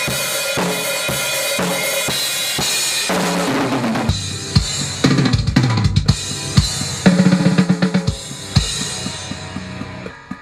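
Rock drum kit playing: a steady beat of bass drum, snare and cymbals, then quick runs of low drum hits in the second half, dying away near the end.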